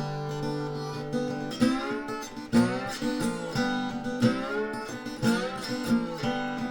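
Background music on acoustic guitar: a held chord at the start, then a run of plucked notes, several of them bending in pitch.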